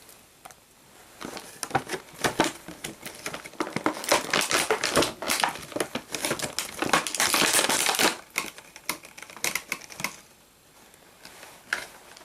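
Plastic packaging crinkling and clicking as an action figure is worked out of its plastic tray, with a dense stretch of crackling in the middle and scattered clicks after.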